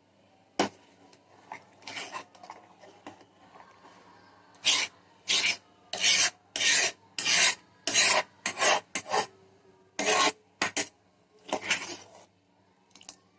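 A spoon or spatula scraping the bottom of a cooking pan while stirring a thickening milk and cake mixture, in quiet scattered strokes at first, then a steady run of louder scrapes about one and a half a second from about four seconds in.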